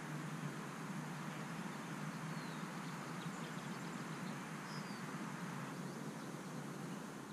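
Outdoor ambience: a steady, even rushing background noise with a few faint, short bird chirps high above it.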